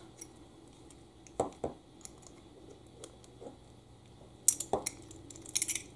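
Two thin collet wrenches clicking and clinking, metal on metal, against each other and the steel collet of an air die grinder as the collet is tightened on a disc mandrel: two light knocks about a second and a half in, then a quick run of sharp metallic clinks near the end.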